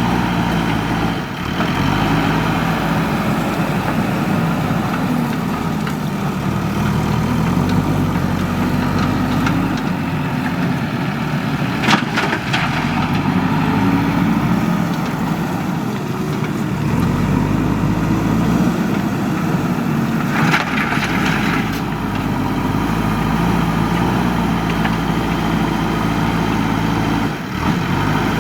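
JCB 3DX backhoe loader's diesel engine running, its pitch rising and falling as it works. There is a sharp knock about twelve seconds in and a short hiss around twenty seconds in.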